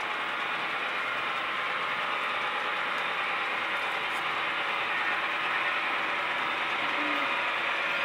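Model train running on layout track: a long intermodal train led by a model GE AC6000CW diesel, its wheels making a steady rolling clatter that grows a little louder about five seconds in as the train comes closer.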